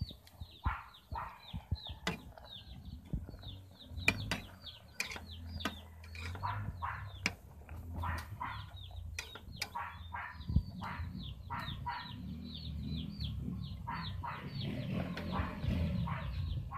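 Chickens calling nearby with many short, falling chirps, several a second. A few sharp clinks come through, from a metal ladle knocking the pot as the boiling greens are stirred.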